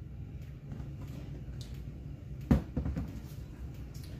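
A homemade varnished storage box handled and set down on a tabletop: one sharp knock about two and a half seconds in, then a few lighter knocks, over a low steady room hum.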